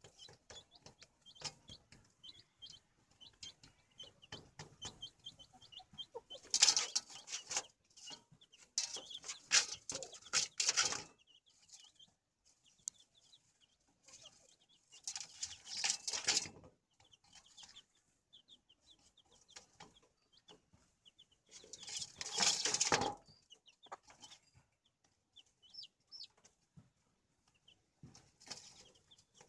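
A domestic hen with her young chicks: quiet, high chick peeping repeated all through, with hen clucking. Four loud noisy bursts of a second or two break in, about a third of the way in, around the middle and again about three-quarters of the way in.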